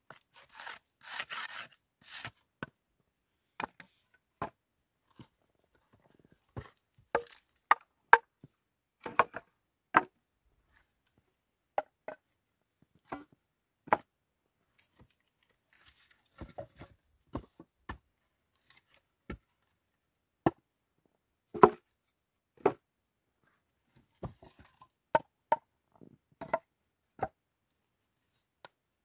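Split firewood clattering as pieces are pulled from a snow-covered stack and dropped onto a pile. The dry wood gives irregular sharp clacks, often two or three close together, with a brief scraping rustle near the start.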